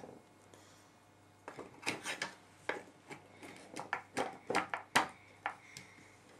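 Wooden toy tools and pieces knocking and clattering on a child's wooden toy toolbox: about a dozen irregular taps and knocks, starting about one and a half seconds in.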